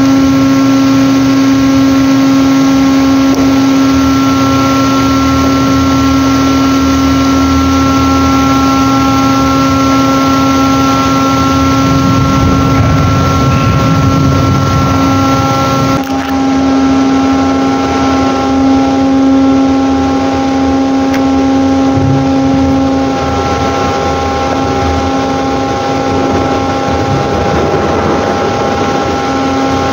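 Ship's machinery running with a steady, constant-pitched drone over a low rumble.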